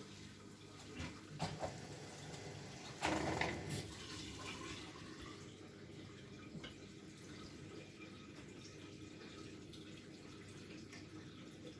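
Water running and splashing inside a Bosch Maxx WFL 248Y washing machine, with a few short knocks early on and a brief louder splash about three seconds in, then a steady trickle.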